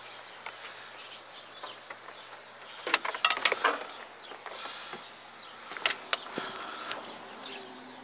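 Rustling and clicking from a handheld camera and wires being handled, in two short bursts about three and six seconds in, over a faint steady hiss.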